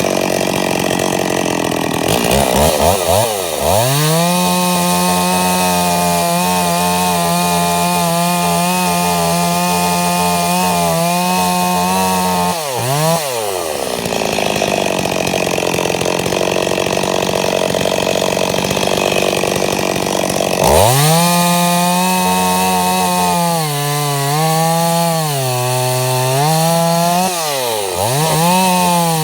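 Stihl 026 two-stroke chainsaw running hard at high revs while cutting into a log. The engine pitch holds steady for long stretches, dips sharply twice, and wavers under load in the last few seconds. The engine has just been rebuilt and is being broken in.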